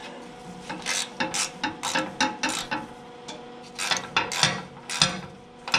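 Hand ratchet clicking in short bursts as screws are run in hand tight on the tractor's hood enclosure.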